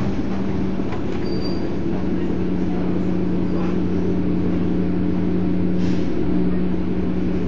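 Volvo Olympian 12M double-decker bus's diesel engine idling steadily at a standstill, heard from on board.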